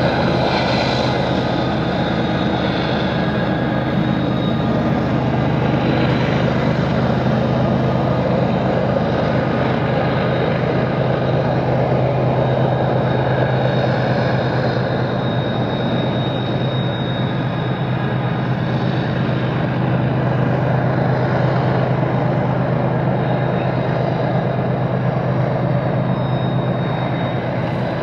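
Diesel locomotives hauling a loaded coal train, a steady low engine drone that runs without a break.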